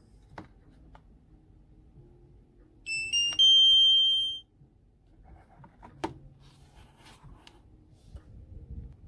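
Three quick electronic beeps rising in pitch, the last held for about a second, from a Jadens D110 portable label maker. A few light clicks of handling come before and after.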